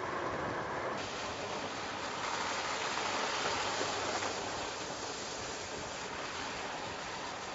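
Mercedes-Benz E-Class All-Terrain driving on a wet, slushy road: a steady hiss of tyres and spray that swells about a second in and eases off after about four and a half seconds.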